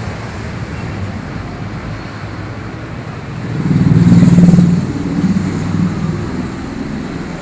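Road traffic: a steady low engine rumble, with one vehicle's engine swelling loud about three and a half seconds in and easing off over the next second or so.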